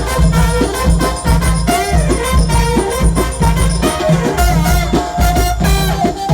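Loud Egyptian mahraganat wedding music: a pounding electronic bass beat under a wavering keyboard melody.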